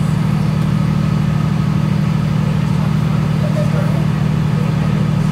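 Steady low drone inside the saloon of a CAF Class 3000 diesel multiple unit standing at a platform: its MTU diesel engine idling under the hum of the air-conditioning unit.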